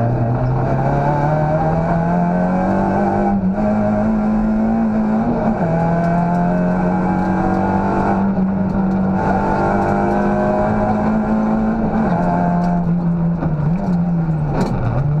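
Citroën Saxo class A6 rally car's 1.6-litre four-cylinder engine, heard from inside the cabin, pulling hard with its pitch climbing. It shifts up about five seconds in, is held at high revs, and then backs off near the end.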